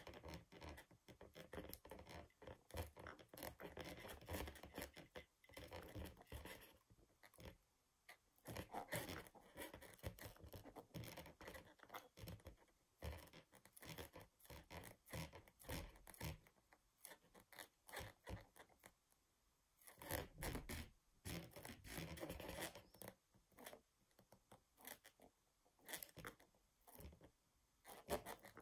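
The base of a head-knocker figurine pressed and shifted against an inflated long rubber modelling balloon, the rubber scraping and rubbing in irregular scratchy stretches with short pauses.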